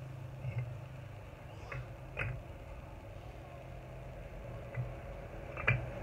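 Red clay bricks knocking against each other as they are picked up and stacked by hand: a few short, sharp clinks, the loudest about two seconds in and just before the end. Under them runs a steady low hum like an idling engine.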